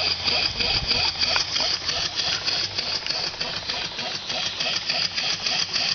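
PM Research No. 4 model steam engine running steadily with a quick, even beat while it drives a small corn sheller.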